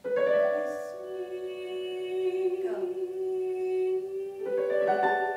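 Slow live vocal music of long held notes, sung or hummed, one steady pitch overlapping another, with a new note coming in about four and a half seconds in.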